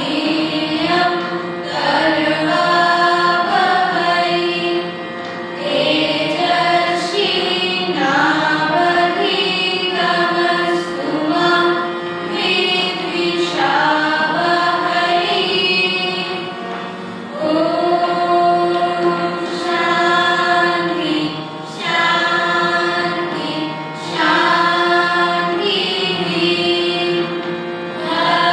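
A mixed group of young voices singing a song together in unison, phrase by phrase, with brief breaks between lines, accompanied by a harmonium.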